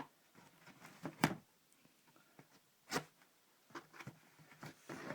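Packaging being handled and pulled open by hand: a few sharp knocks and taps, roughly a second apart, with soft scraping and rustling between them.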